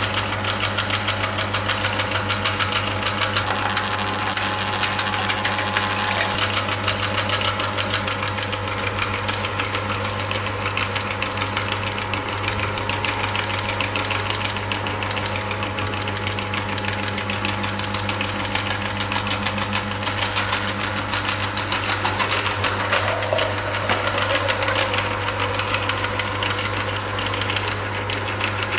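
Motor-driven stainless-steel meat grinder running steadily while red dragon fruit is fed in and ground through the plate: a constant low hum with a dense, rapid rattle over it.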